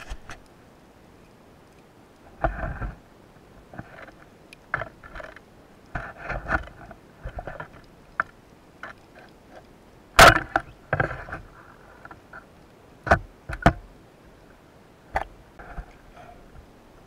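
Underwater knocks, clicks and scrapes of a speargun and diving gear, coming irregularly. The loudest is a sharp crack about ten seconds in, around when the octopus is speared.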